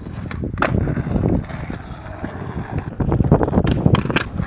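Strong wind buffeting the microphone in a steady low rumble, with a sharp knock about half a second in and a few more clicks and knocks in the last second and a half.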